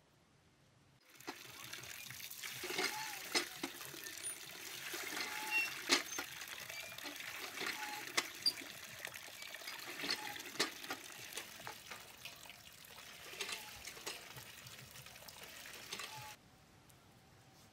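Water from a hand pump pouring in a steady stream into a steel bowl of fish pieces, with splashes and knocks as the pieces are rubbed and turned by hand under the stream. The pouring starts about a second in and cuts off suddenly near the end.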